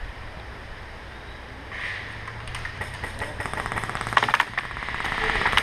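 Electric airsoft rifle firing on full auto: a fast, even string of shots starting about two and a half seconds in, with a couple of louder cracks near the end.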